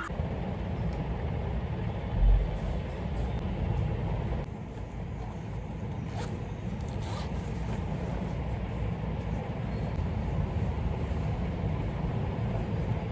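Steady low rumble of city traffic, with a single dull low thump about two seconds in.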